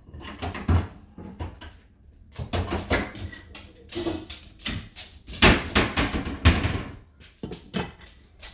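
Kitchen cupboard doors and cookware knocking and clanking in an irregular run while someone rummages for a pan lid. Near the end a glass lid is set on a frying pan.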